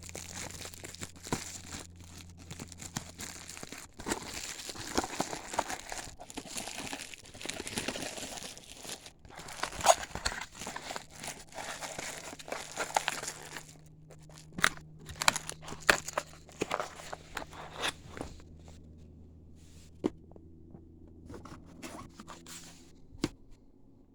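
Plastic packaging crinkling and tearing as LiPo battery packs are unwrapped. Past the middle, the crinkling gives way to a run of sharp clicks and taps from the packs and wrapping being handled, over a faint steady low hum.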